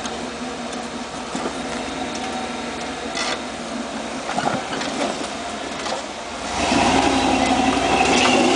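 Off-road 4x4's engine running as the truck crawls over an obstacle. It gets louder about two-thirds of the way through as the throttle comes on.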